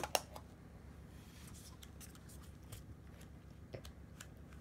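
A plastic Kinder egg toy capsule snapped open with a sharp click at the start, then faint scattered clicks and rustles of small plastic toy parts handled in the fingers.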